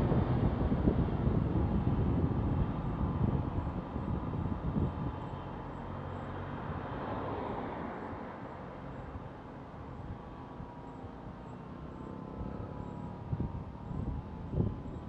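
Low rumble of a vehicle passing close to a moving bicycle, mixed with wind noise on the bike-mounted camera. It is loudest at first and dies down over the first several seconds to steadier wind and road noise, with a few short knocks near the end.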